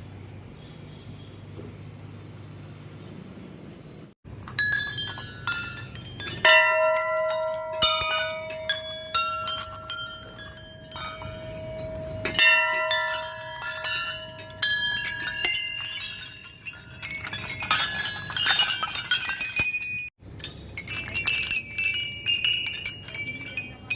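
Metal bells ringing in many quick, overlapping strikes, with one tone held for about ten seconds. The sound breaks off abruptly twice, like cuts between clips. Before the bells begin, about four seconds in, there is only a faint steady background hiss.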